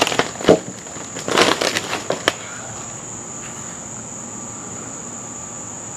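A few knocks and rustles in the first couple of seconds as a wooden form board and plastic sheeting are handled at the edge of a concrete slab, the sharpest knock about two seconds in. A steady high insect drone runs underneath throughout.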